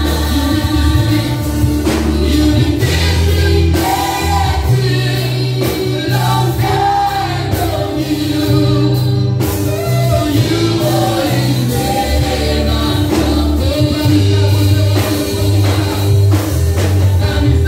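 Live gospel worship band playing, with electric bass, drum kit and keyboard under several voices singing the song together.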